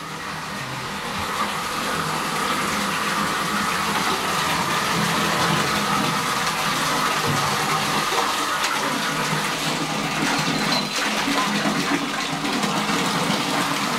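Bath tap running, water pouring steadily into a bathtub as it fills. The rush grows louder over the first two seconds and then holds steady.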